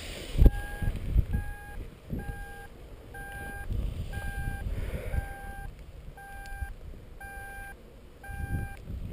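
Paragliding variometer beeping about once a second, each beep short and at the same mid pitch. Gusts of wind and handling knocks rumble on the microphone, with a sharp thump about half a second in.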